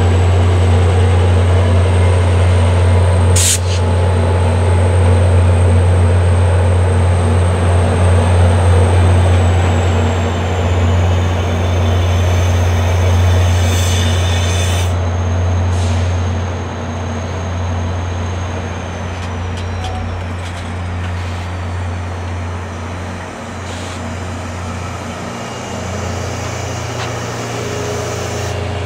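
VIA Rail passenger train rolling slowly by behind two EMD F40PH-2D diesel locomotives, slowing for a station stop: a steady low diesel engine rumble that fades as the locomotives draw away, over the rumble of the passing cars. A thin high squeal runs above it and slides lower in pitch about halfway through, with a sharp clank about three seconds in.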